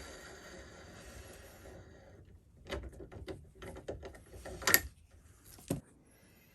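Mini lathe running for about two seconds, then stopping, followed by a series of metal clicks and knocks from handling the threaded workpiece and tooling; the loudest knock comes nearly five seconds in.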